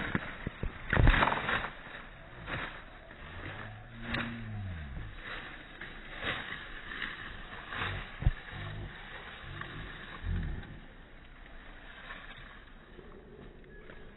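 Feet in rubber flip-flops scuffing and stepping on dry leaves, twigs and loose soil, giving a series of scrapes and crunches, the loudest about a second in. A faint low tone rises and falls a few times in the background.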